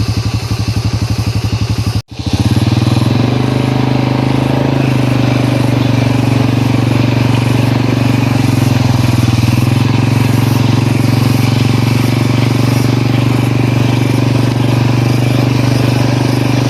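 Motorcycle engine running steadily under load on a rough trail, the bike carrying two bundles of firewood. The sound cuts out for a moment about two seconds in, then comes back louder and holds steady.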